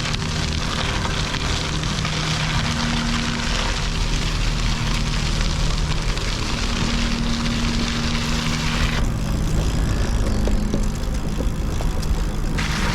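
Wind rushing over the camera microphone and the tyres of a gravel bike rumbling over the trail surface as the bike is ridden, with a low hum that shifts in pitch. The upper hiss thins out for a few seconds near the end.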